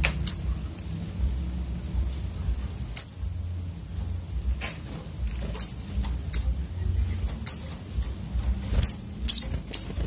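Olive-backed sunbirds (sogok ontong) giving short, sharp high chirps, a few scattered at first and then coming quickly one after another near the end, over a steady low rumble.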